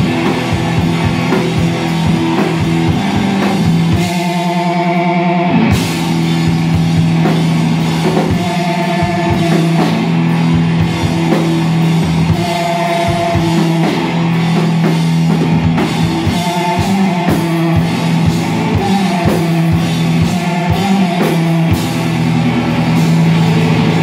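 Live rock band playing loud: distorted electric guitar over a drum kit in an instrumental passage. About four seconds in the drums drop out under held guitar notes, then the full band crashes back in near six seconds.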